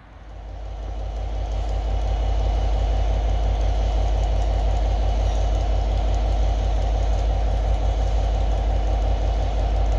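Class 180 diesel multiple unit's underfloor Cummins diesel engines running as the unit moves slowly. It is a deep, evenly pulsing throb that swells over the first couple of seconds and then holds steady.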